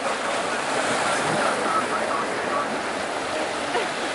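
Steady rush of small waves washing around a swamped yacht in shallow sea water, with wind on the microphone.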